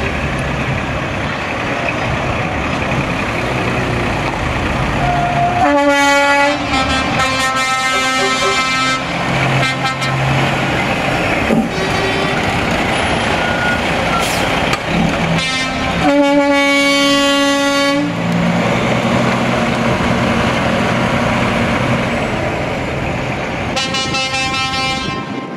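Three loud single-note truck air horn blasts, the middle one the longest, over the steady low run of a diesel tractor unit's engine as it drives past.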